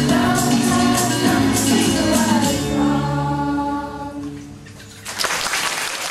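Children's choir singing with rhythmic clapping. The song ends about four seconds in, and a little over a second later audience applause breaks out, cut off near the end.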